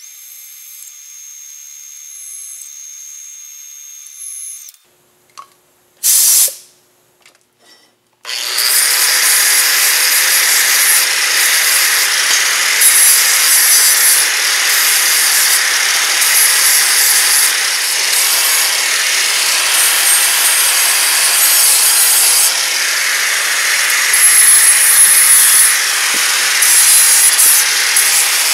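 Angle grinder with a flap disc grinding the edge of a steel plate: a loud, steady grinding noise that starts about eight seconds in and carries on. Before it, a machine spindle runs with a steady high whine as a drill bores a metal plate, and a brief loud rush comes about six seconds in.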